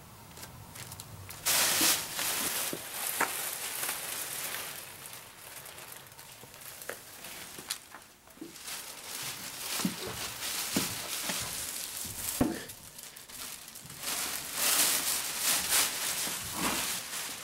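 Plastic bags rustling and crinkling as they are handled: a clear zip-top evidence bag, and a black plastic bag toward the end, with a few short clicks and knocks between.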